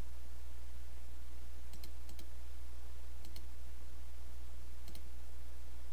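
Computer mouse clicking a few times, some clicks in quick pairs (press and release), about two, three and five seconds in, over a steady low hum.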